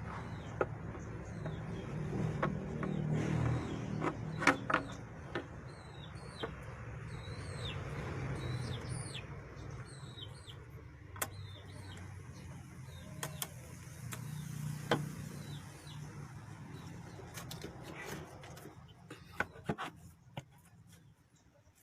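Small birds chirping over and over, with scattered sharp clicks and knocks of hand-tool work in between.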